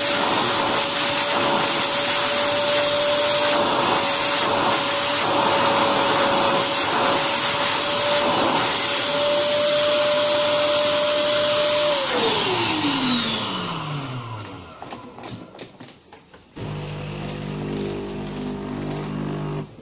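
Vacuum cleaner running steadily with its nozzle in an espresso grinder's burr chamber, sucking out old coffee beans, with a steady whine over its rush of air. About twelve seconds in it is switched off and the whine falls away over a couple of seconds. A few light clicks follow, then a quieter low steady hum near the end.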